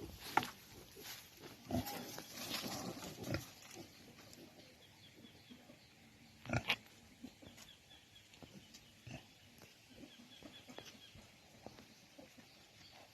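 Pigs in a pen calling: a cluster of short calls in the first few seconds, one loud call about six and a half seconds in, then fainter scattered noises.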